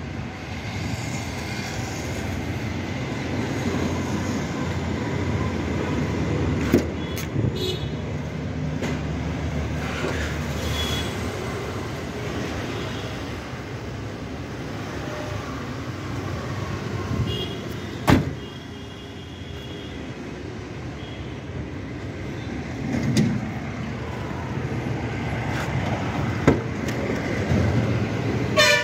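Ashok Leyland Dost pickup's diesel engine idling steadily, with scattered clicks and knocks from handling inside the cab, one sharp knock about midway and a short rattle near the end.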